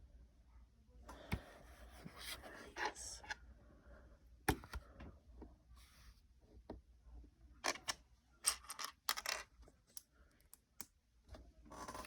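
Small plastic Lego bricks being handled and pressed into place: scattered sharp clicks several times, with rustling and light scraping of pieces in between.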